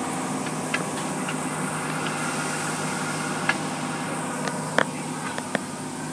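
Automatic car wash heard from inside the car: a steady hiss of spray and machinery over a low hum, with scattered sharp ticks and taps on the glass, the loudest about three quarters of the way through.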